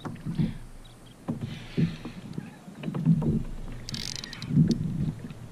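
Water slapping and knocking against a fishing kayak's hull in an irregular series of low thumps, with a couple of brief hissing splashes.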